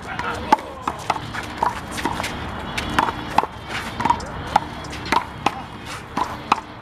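Rubber big blue handball being slapped by hand and striking the wall and ground in a rally, a sharp smack with a short ring about twice a second.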